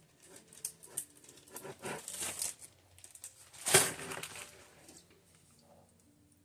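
Small items being handled and sorted by hand: rustling and light clicking, with one louder sharp knock a little under four seconds in, then the handling dies away.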